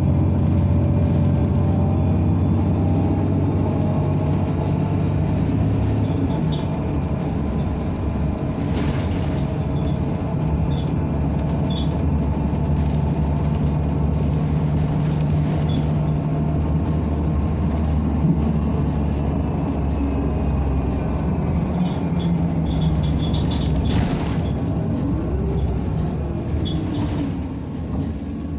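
Cabin sound of a NABI 45C-LFW city bus under way, its compressed-natural-gas engine running with its note shifting as the bus changes speed. Occasional sharp rattles or knocks, and a falling whine near the end.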